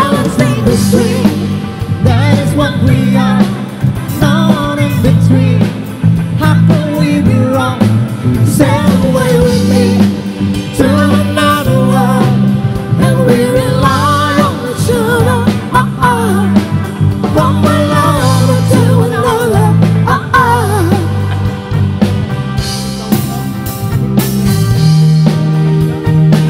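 Live cover band playing a pop song on keyboard, bass guitar, electric guitar and drum kit while a singer sings into a microphone. The vocal stops about three-quarters of the way through and the band plays on alone, with sharp drum strokes near the end.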